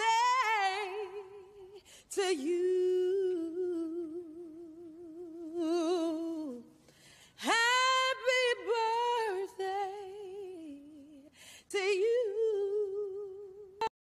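A woman singing solo without accompaniment: long held notes with wide vibrato and ornamented runs, in four phrases. It cuts off just before the end.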